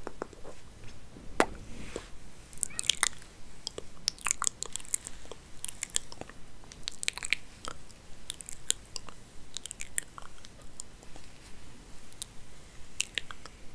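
Hair being handled and combed close to the microphone: irregular crisp crackles and scratches, some coming in quick clusters.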